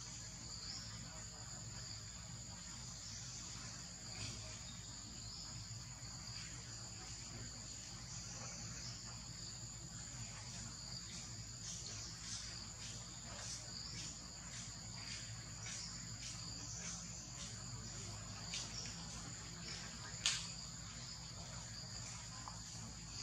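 Steady high-pitched insect drone, two tones held without a break, with scattered faint clicks and one sharper click about twenty seconds in.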